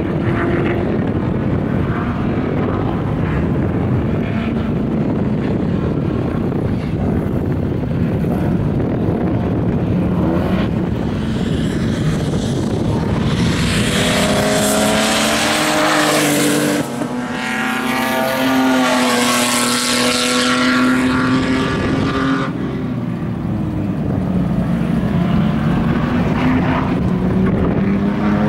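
Race car engines running on a circuit, with cars coming round and past. The loudest stretch comes about halfway in and lasts several seconds: a rising engine note, a sudden brief dip, then a high steady note that cuts away. Near the end another car's engine rises.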